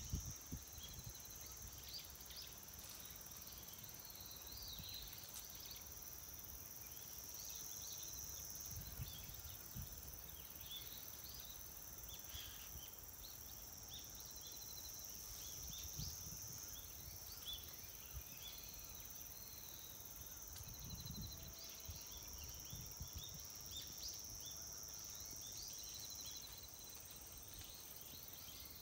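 Outdoor field ambience: a steady, high-pitched insect chorus with many short bird chirps over it, and a few faint low rumbles.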